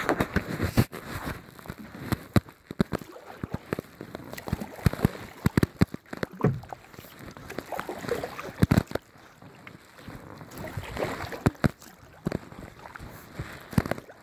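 Kayak paddle strokes in calm lake water: sloshing and dripping from the paddle blades, with many irregular sharp taps and knocks on the plastic kayak.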